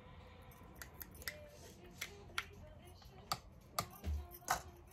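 Faint, irregular clicks and taps of a spoon against a small tub and the rim of a mixing bowl as solid coconut oil is scooped out and knocked off into the bowl, with a soft thump about four seconds in.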